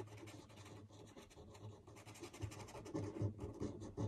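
Faint scratching of an orange felt-tip pen on paper, colouring in a small area with short repeated strokes.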